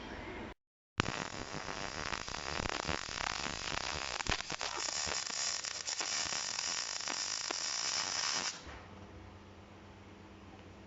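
Electric welding arc crackling and hissing steadily as an exhaust pipe is welded, stopping abruptly about three seconds before the end, after which only a faint low hum remains.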